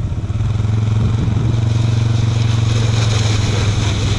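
ATV engine running under throttle with a steady pitch, growing louder about a third of a second in and holding there.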